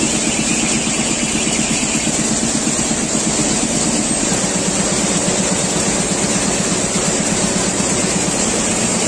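Richpeace multi-needle shuttle quilting machine running steadily at its 500 rpm setting, a loud, even mechanical clatter of needles and shuttles stitching through padded fabric.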